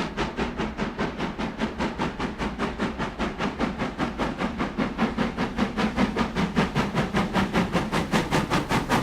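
Steam locomotive exhaust chuffing in a fast, even rhythm of about five or six beats a second.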